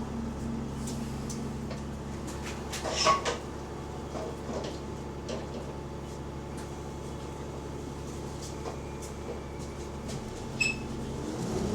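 Bus diesel engine idling with a steady low hum, heard from on board a bus that has an exhaust leak. A short clatter of knocks comes about three seconds in, and a single high ding near the end. The engine note starts to rise at the very end.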